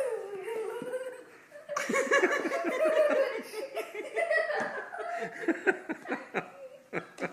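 A person laughing hard in quick, repeated bursts for several seconds, after a drawn-out voice sound at the start.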